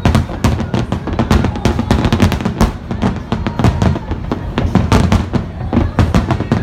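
Fireworks display at full barrage: a dense, rapid run of sharp bangs and crackles, several a second, over a continuous low rumble.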